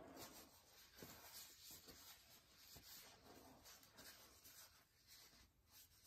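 Near silence: room tone with faint, scratchy rustles.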